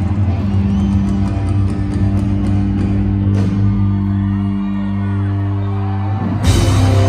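Live rock band holding a low, sustained chord for about six seconds, with shouts from the crowd, then the drums and full band crash back in loudly near the end.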